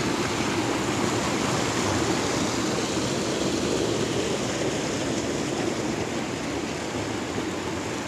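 A shallow mountain stream rushing over rocks and small cascades: a steady rush of water.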